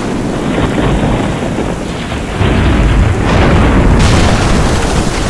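Cinematic thunderstorm sound effect: loud rolling thunder over rain. The rumble swells about two and a half seconds in, and a sharper, brighter crash comes about four seconds in.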